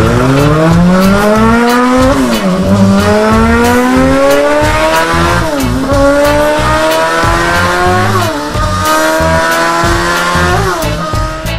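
Sound effect of a sports car engine accelerating through the gears: the pitch climbs steadily, drops sharply at each gear change about four times, and climbs again.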